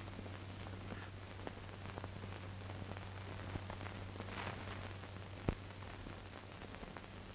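Background noise of an old film soundtrack: steady hiss with a low hum and scattered faint crackles, and one louder pop about five and a half seconds in.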